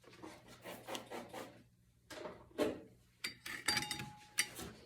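Steel clutch plates and friction discs being handled and set into a transmission's reverse clutch drum: soft rubbing and light scrapes, then a few sharper metallic clinks with a brief ring near the end.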